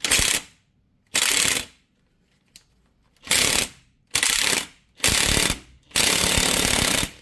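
Impact gun hammering in six short bursts, the last one the longest, as it drives the screw of a bearing press to push the universal joint cups out of a Jeep Wrangler front axle yoke.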